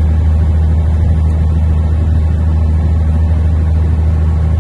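Truck's diesel engine and road noise heard from inside the cab while cruising, a steady deep drone that holds one pitch throughout.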